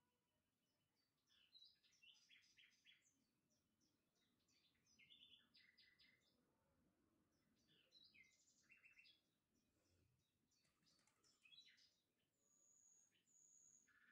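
Faint birds chirping: many quick series of short high chirps and trills, with two thin steady whistles near the end.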